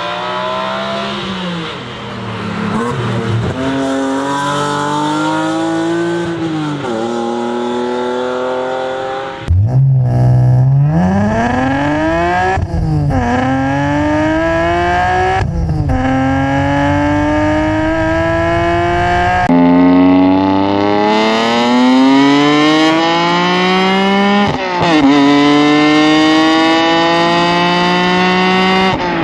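BMW M3 engines from three successive generations accelerating hard through the gears. Each engine's pitch climbs steadily, then drops at each upshift, and the sound switches abruptly to a different car twice.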